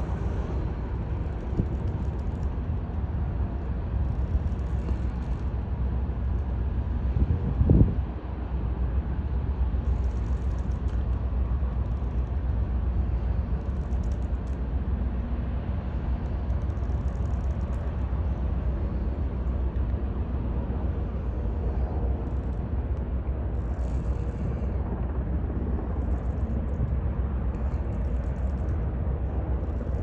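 Low, steady rumble of a passing container ship, with a single short bump about eight seconds in.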